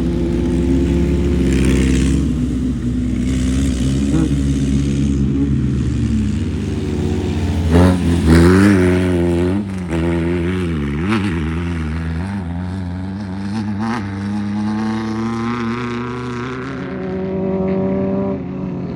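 Off-road race vehicle engines running and revving, their pitch wavering up and down as the throttle changes. It is loudest about eight seconds in, and the pitch wavers again later.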